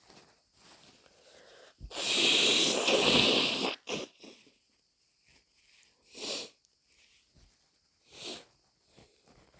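A person blowing their nose in one long, noisy blow of about two seconds, followed by a few short breathy snorts or sniffs.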